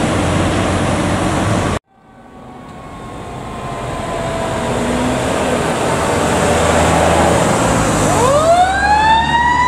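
For the first two seconds a fire truck passes with loud engine and road noise. After an abrupt cut, an approaching aerial ladder fire truck's siren is heard: faint tones sliding slowly down, then about eight seconds in the siren winds up into a rising wail.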